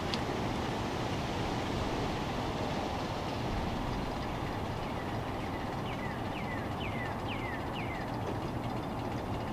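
Steady low outdoor background rumble with no voices. About six seconds in comes a quick run of five short, falling chirps.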